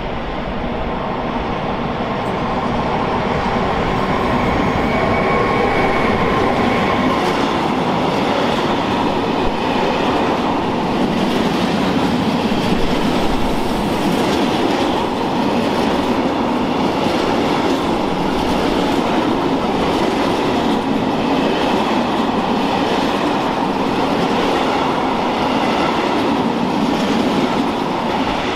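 Freight train of empty stake flat wagons rolling through at speed: a steady loud rumble of steel wheels on the rails with repeated clacking over the rail joints.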